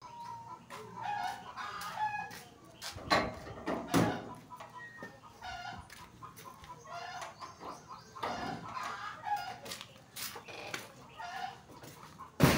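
Chickens clucking and calling in short repeated notes, with a few sharp knocks in between.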